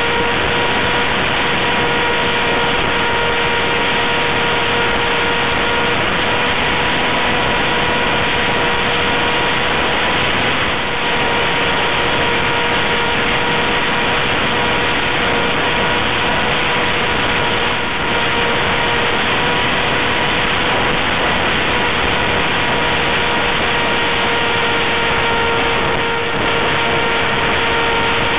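ParkZone Stryker's electric motor and propeller whining at a steady, unchanging pitch, mixed with a loud rush of wind over the onboard camera's microphone. The level dips briefly about three times.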